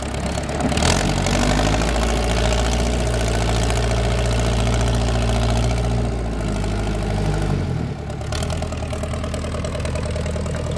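Diesel tractor engine running steadily; about eight seconds in its note shifts and it gets slightly quieter.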